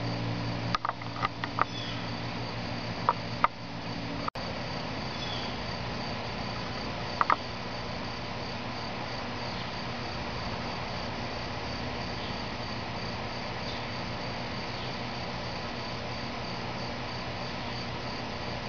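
Steady, slightly pulsing high-pitched insect trill over outdoor background hiss. A few light clicks come in the first few seconds and a double click about seven seconds in, and a low hum stops about four seconds in.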